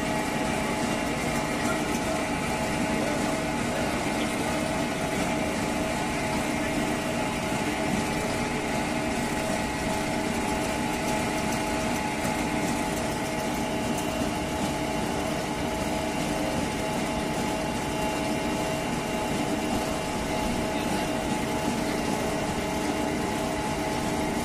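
Steady drone of a John Deere tractor engine held at constant speed, driving a mobile apple press. Faint crowd chatter sits behind it.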